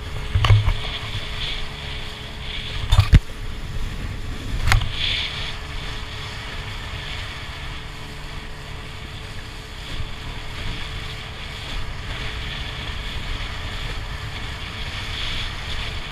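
Steady low rumble of engine or machinery noise with a faint steady hum. There are a few sharp clinks of spoons and bowls in the first five seconds.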